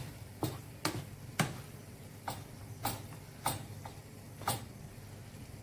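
Wooden spoon knocking against a nonstick frying pan while minced beef and tomatoes are stirred: about eight sharp clicks at uneven spacing, roughly two a second, over a low steady hum.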